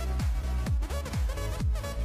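Electronic background music with a steady kick-drum beat, about two beats a second, under a melodic synth line.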